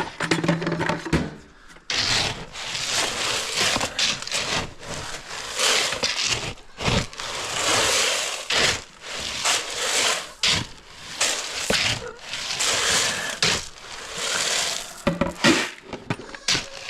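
Grain being poured out for livestock: a rushing, crackling hiss that starts about two seconds in and keeps swelling and easing, with occasional sharp knocks.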